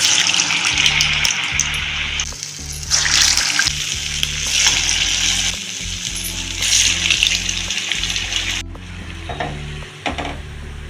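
Medu vadas deep-frying in hot oil: a steady sizzle that breaks off about two seconds in, resumes, and stops sharply near the end, over soft background music.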